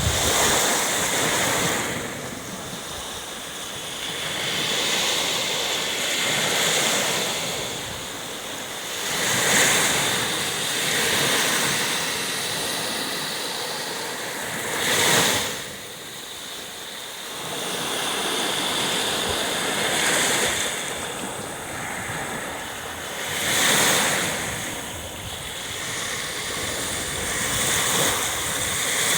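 Sea surf: waves breaking on the shore one after another, the rush swelling and fading every few seconds, with a sharper crash about halfway through.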